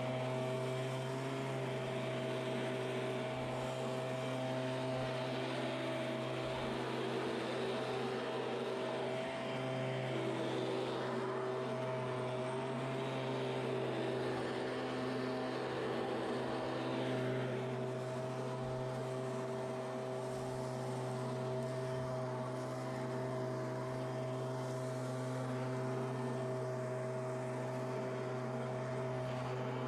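Stihl two-stroke handheld leaf blower running steadily, blowing air across fallen leaves.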